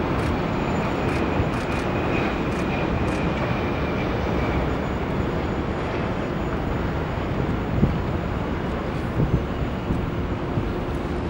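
Airbus A330 jet airliner on final approach, its engines giving a steady rushing noise, with a faint high whine that fades out about four seconds in.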